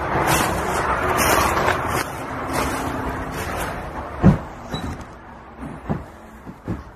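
Road traffic passing, its noise fading away over the first four seconds; then about half a dozen footsteps thud on bare wooden floorboards, the first of them the loudest.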